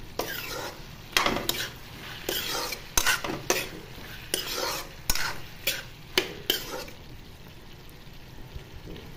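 A utensil stirring bottle gourd curry with tomatoes in a metal kadai: about a dozen irregular scraping strokes against the pan over the first six and a half seconds, then a steady faint sizzle of the vegetables frying.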